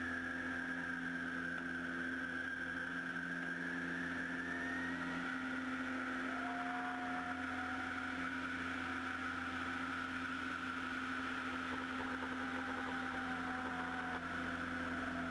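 Super Decathlon aerobatic plane's four-cylinder Lycoming engine and propeller running steadily in flight, heard close up from the wing with wind rush. The engine's pitch wavers slightly now and then.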